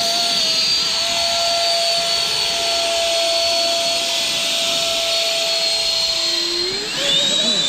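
Twin 120 mm electric ducted fans of a 1:9 scale F-35B model jet running at takeoff power: a loud, steady high-pitched whine over a rush of air. The whine eases about six seconds in, then spools up again near the end.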